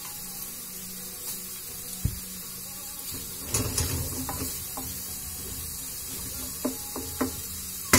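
Chopped garlic and peppers sizzling softly in a pan on a gas stove, stirred with a utensil that scrapes the pan about halfway through, with a few light clicks near the end. A steady low hum runs underneath.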